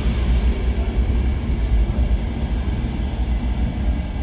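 Electric S-Bahn commuter train approaching along the platform in an underground station: a steady low rumble with a hiss above it.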